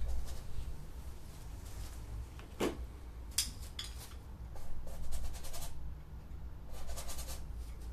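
Paintbrush strokes on a stretched canvas: short scratchy brushing sounds in several bursts, with a brief squeak about two and a half seconds in, over a steady low hum.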